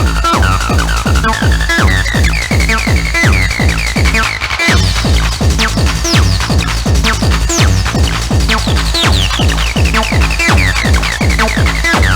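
Fast electronic dance music from a DJ set: a steady pounding kick drum at about two beats a second under a repeating high synth riff. The kick drops out for a moment about four and a half seconds in.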